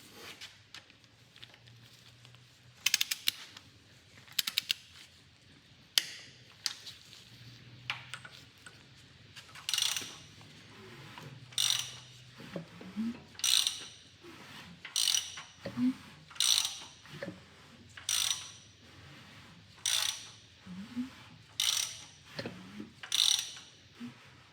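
Hand ratchet clicking in short repeated strokes, turning the LS3's crankshaft over by hand to bring the lifters up for rocker adjustment; a few scattered clicks at first, then a steady stroke about every second and a half through the second half.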